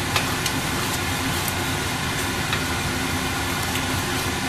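Tomato masala frying in a pan with a steady hiss, while a spatula stirring it clicks lightly against the pan a few times.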